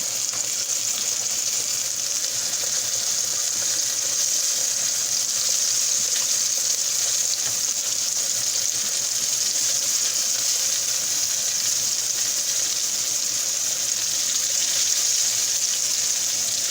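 Breaded cube steak frying in hot oil: a steady sizzle.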